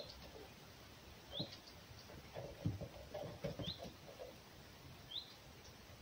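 Rubber squeaky toy giving short high squeaks as a red fox bites down on it, about four in all, a second or two apart, each with a soft thud of the bite and rustle of chewing.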